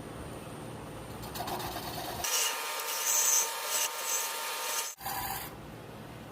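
Wood lathe running with a steady low hum. About two seconds in, a turning tool cuts into the spinning Cipo mahogany with a loud scraping rasp, which stops suddenly about five seconds in.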